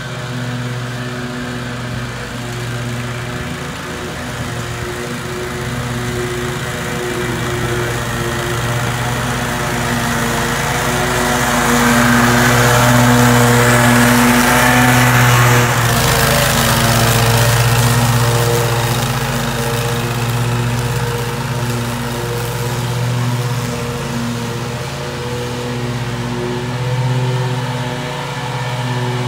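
Toro Grandstand stand-on mower's engine running under load as it mows wet grass on a hillside. It gets louder as it passes close by in the middle, then eases off as it moves away up the slope.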